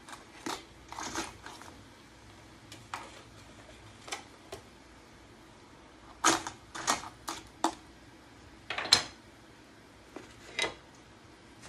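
Metal tongs clinking and scraping against a stainless steel pot and the hard shells of blue crabs as the crabs are moved around, in irregular clatters, loudest about six and nine seconds in.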